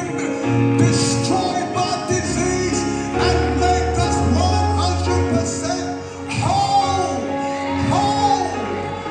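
Music with singing: sung melody lines over held bass notes that change every second or two.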